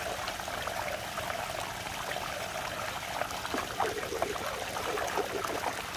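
Water swirling down a deep whirlpool vortex: a steady rushing with gurgles and splashes, which grow busier from about three seconds in.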